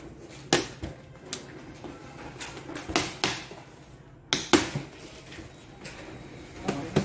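A string of sharp knocks and clacks, the loudest about four and a half seconds in, as plastic packing straps and plastic corner guards are pulled and slapped against a cardboard copier carton.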